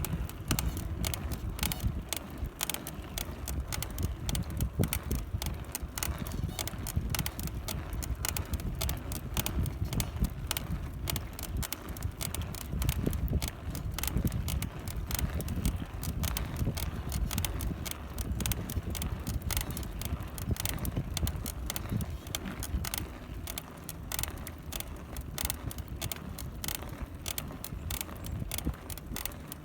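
Cannondale F-Si bicycle's BB30 bottom bracket creaking, a run of sharp clicks repeating many times a second under a low rumble.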